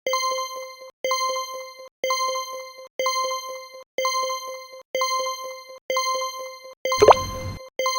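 Countdown timer sound effect: a bell-like electronic chime once a second, each followed by a quick patter of small ticks. About seven seconds in it changes to three louder beeps with a falling swoop, one a second, the cue for the last seconds of the count.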